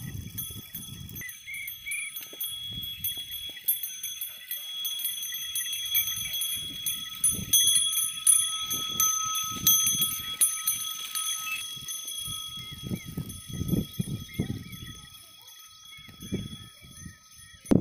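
A pair of bullocks drawing a wooden seed drill over tilled soil: irregular low thuds of hooves and footsteps, with light clicking from the drill for the first two-thirds.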